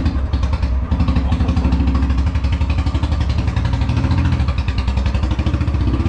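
Royal Enfield Bullet's single-cylinder engine running steadily, with even, rapid firing pulses.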